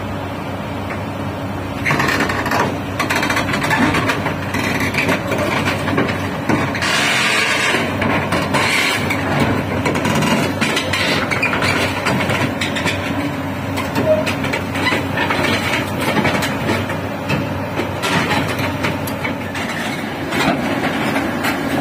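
Heavy diesel engine running steadily during the unloading of an excavator from a self-loader truck. It grows louder about two seconds in, with scattered metallic clanks and knocks over the engine sound.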